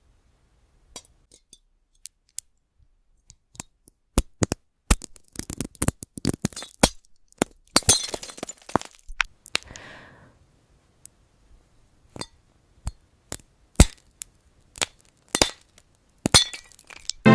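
Glass cracking and clinking as the glass cherry is broken up: sharp single cracks at first, a dense run of crunching and crackling from about four to ten seconds in, then scattered single cracks.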